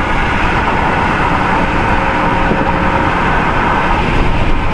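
Wind and tyre noise rushing in through an open window of a moving car: a loud, steady rush.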